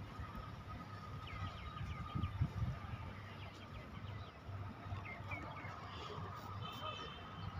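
Birds chirping in short, quick calls, several times over, above a steady low rumble.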